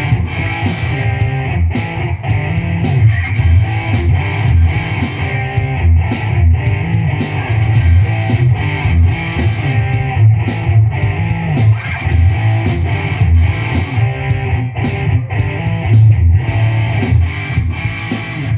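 PRS SE CE24 electric guitar played through an amp, a hard-rock rhythm part.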